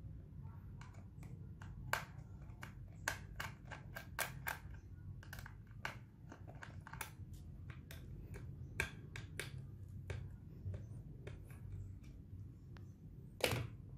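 Small screwdriver clicking and scraping against laptop screws and a metal hard-drive bracket, an irregular scatter of sharp little clicks, with one louder click near the end.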